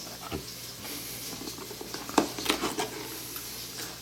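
Handling noise from a new camcorder and its small plastic parts: a few scattered light clicks and taps, the sharpest about two seconds in.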